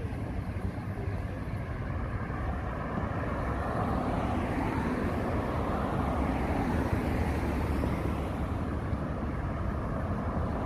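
Street traffic: cars passing, a steady wash of engine and tyre noise that grows a little louder a few seconds in.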